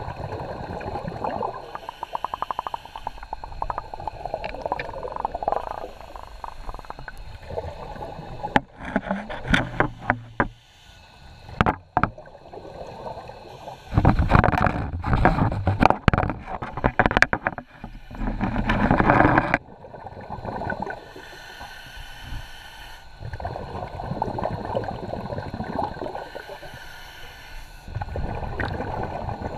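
Underwater scuba breathing: exhaled air rushing and bubbling out of a regulator in long, uneven breaths several seconds apart, the loudest one about halfway through lasting some five seconds.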